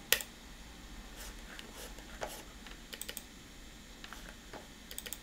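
Button clicks of an Apple mouse: about a dozen sharp single clicks and a few quick double clicks, the loudest one right at the start.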